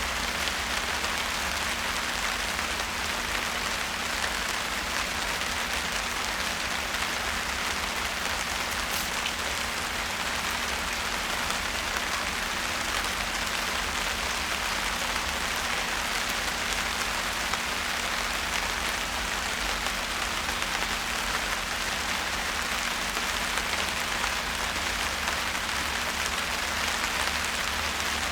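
Steady rain falling and pattering on surfaces, an even hiss of drops that neither builds nor eases.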